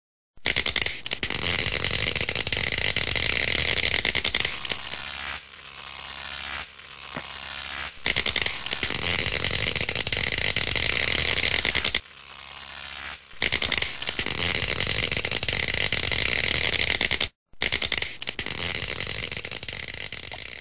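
Loud, rough noise with no clear pitch. It sags and returns several times and cuts out sharply for a moment about 17 seconds in.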